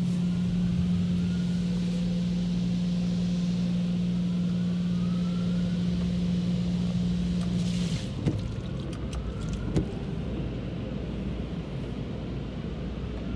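Mark VII ChoiceWash XT touchless car wash heard from inside the car: a steady machine hum and water hissing over the car. The hum cuts off about eight seconds in, the sound drops, and a few clicks and knocks follow.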